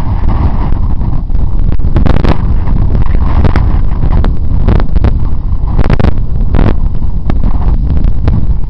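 Wind buffeting the camera's microphone loudly as a mountain bike descends a rough grassy track, with frequent short knocks and rattles from the bike jolting over the ruts.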